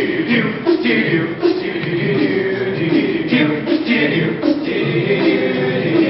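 A cappella vocal group singing a wordless intro in stacked harmony, with a few sharp percussive hits.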